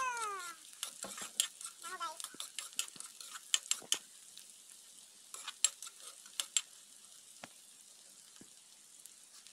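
Sliced onions sizzling in hot oil in a wok, with a spatula scraping and clacking against the pan as they are stirred. The clacks are frequent at first and thin out over the last few seconds, leaving the steady sizzle.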